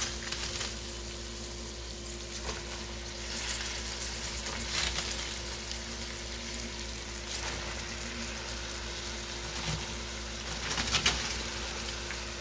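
Sliced peppers and onions frying in butter in a skillet, a steady sizzle with several brief surges of louder sizzling as shredded raw cabbage is put into the pan.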